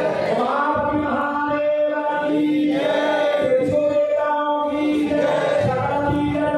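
Hindu mantras chanted into a microphone during a havan fire ritual, the voice holding long, even notes again and again in a steady cadence.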